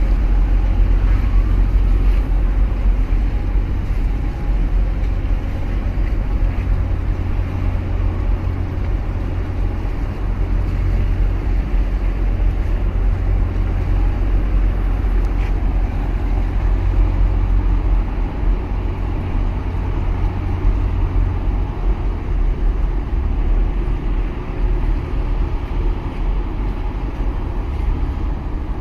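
Deep, steady low rumble of a large container ship under way at close range, with a harbour tug running alongside its hull.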